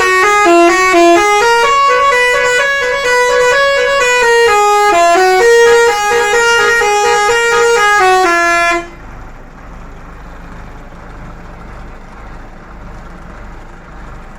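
A bus's musical horn plays a quick tune of stepping notes, loud and bright, then cuts off suddenly about nine seconds in. Only a low rumble is left after it.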